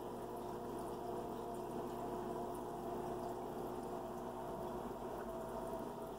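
Aquarium filter running: a steady trickle of water with a constant motor hum underneath.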